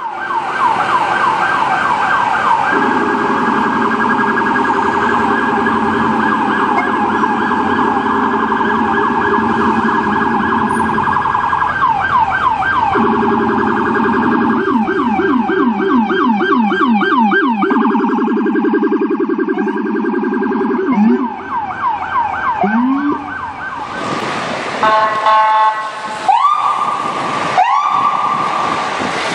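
Emergency vehicle electronic sirens in city traffic, two at once, one high and one low, sweeping rapidly up and down in a fast yelp. Near the end a horn blasts briefly, then a siren winds up in slower rising wails.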